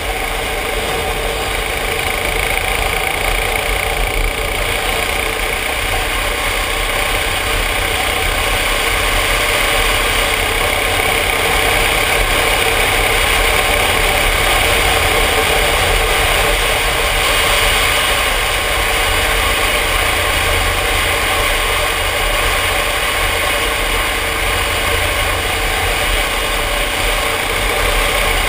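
Yamaha Ténéré motorcycle engine running at a steady cruising speed, with wind rushing over a helmet-mounted camera. The sound swells a little midway.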